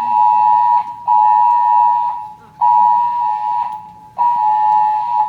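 Building voice-evacuation fire alarm sounding its alert tone between recorded evacuation messages: loud, steady, mid-pitched beeps about a second long, four of them with short gaps between.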